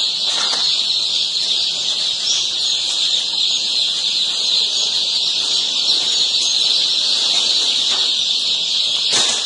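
Shipping cartons full of day-old chicks peeping all at once: a loud, steady, high-pitched chorus, with a short knock near the end.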